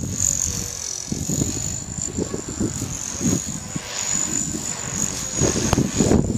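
E-flite Blade CP electric RC helicopter's motor and rotor whining high and steady, the pitch wavering slightly as it flies. Wind gusts buffet the microphone with low rumbling, hardest near the end.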